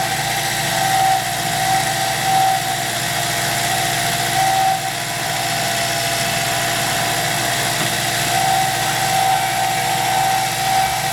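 Cue lathe running steadily while a cutting tool faces off the end of a cue's tenon and ferrule, trimming off leftover cured glue. There is a continuous hum with a whining tone that swells several times.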